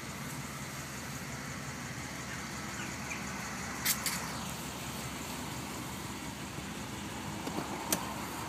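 Cadillac Fleetwood Brougham's engine running steadily, a low even hum. Two sharp clicks come about four seconds in, and one more near the end.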